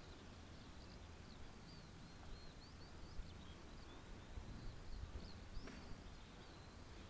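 Small birds chirping faintly, a scatter of short high chirps several times a second, over a low steady rumble.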